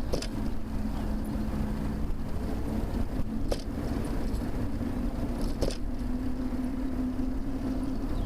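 Motor traffic on a multi-lane road heard from a moving bicycle: a steady road rumble with a car's engine and tyre hum. Three short clicks come through it.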